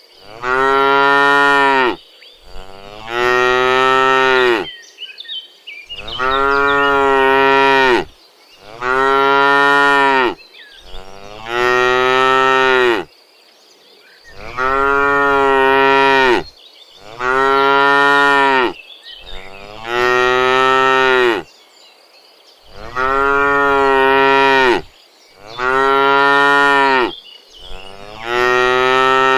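Cows mooing over and over, about eleven long, loud calls, each a second and a half to two seconds long with short pauses between them.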